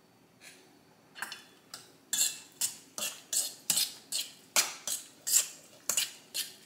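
A metal fork scraping and clinking against a stainless steel mixing bowl while a wet salmon mixture is stirred. The quick strokes start about a second in and come about two to three a second.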